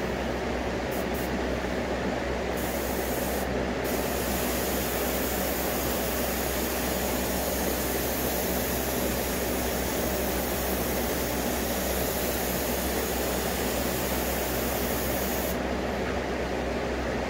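Iwata Eclipse airbrush with a .5 mm setup spraying paint in a steady hiss. The hiss starts after about two and a half seconds, breaks off for a moment soon after, and stops shortly before the end. A steady low hum runs underneath throughout.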